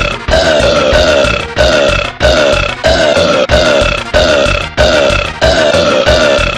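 A cartoon man's long, deep burp, one sample looped over and over, starting fresh about every two-thirds of a second, each repeat chopped off abruptly as the next begins: a stutter-edited burp loop.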